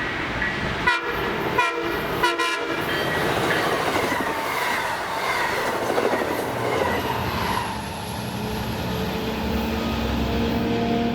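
Long Island Rail Road train sounding its horn in a few blasts with short breaks over the first few seconds, then passing with the rush and clatter of its wheels on the rails.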